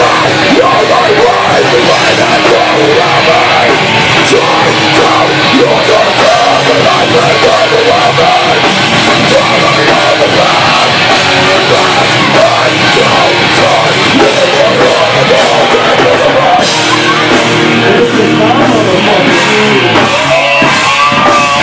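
Heavy metal/hardcore band playing live at full volume: distorted electric guitars, bass and drums with vocals. About three-quarters of the way through, the cymbals and dense playing drop away, leaving held guitar notes ringing with some sliding pitches.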